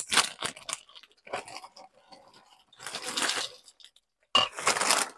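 Hot Cheetos being crushed inside their plastic snack bag: crunching and bag crinkling in several short bursts.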